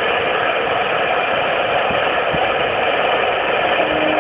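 CNC router spindle running with its bit cutting into a rubber sheet: a loud, steady machine noise, with a steady low tone joining in near the end.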